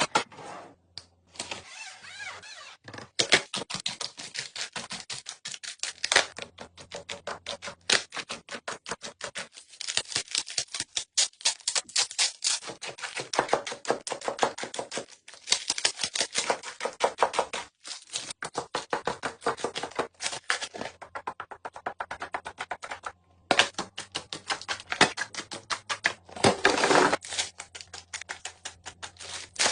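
Rapid clicking and crinkling of plastic packaging and containers being handled, with brief pauses, over a faint low hum.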